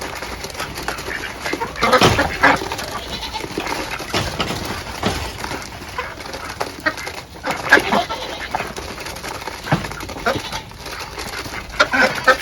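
Farm animals calling on and off, with a few scattered knocks.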